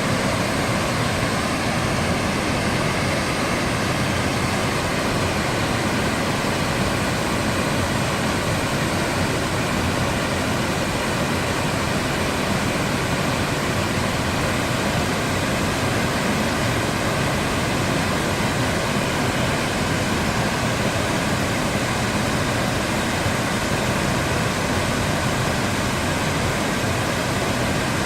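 Cumberland Falls, a large river waterfall, rushing with a loud, steady, unbroken noise of falling water.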